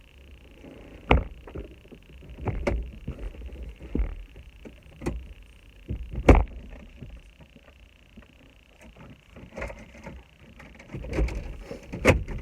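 Irregular knocks and clunks of tools and parts being handled during hands-on work on a car, the loudest about six seconds in, over a steady faint high hiss.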